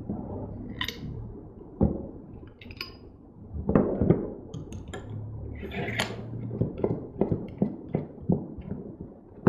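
Metal parts of a hand-operated nut rivet tool clinking and knocking as it is handled and reassembled, the mandrel fitted and the screw handle put back on. A run of quick light clicks comes in the second half.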